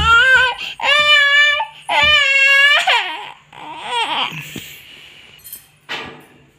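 A small girl crying loudly in long, high-pitched wails, about three in the first three seconds, then fainter falling whimpers that fade out. She is crying at being woken from sleep.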